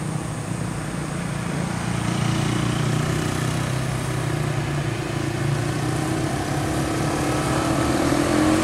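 Diesel engine of a medium bus running as it comes up close, its hum growing louder and rising in pitch near the end, mixed with motorcycles passing.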